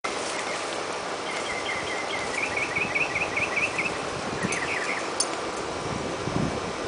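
An Airedale terrier digging in loose garden soil, its paws scratching at the dirt against a steady outdoor background hiss. A small bird sings a quick run of repeated chirps in the first half, with a shorter burst of chirps a little later.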